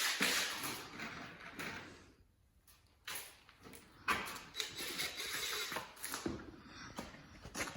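Scraping, rubbing and light knocking of parts being handled, in two spells with a pause of about a second between them.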